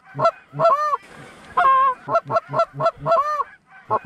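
Hand-blown Canada goose call: runs of quick clucks and honks, some notes breaking upward and back down in pitch, with a short pause about three and a half seconds in. The calling is meant to draw an incoming flock of Canada geese to the decoys.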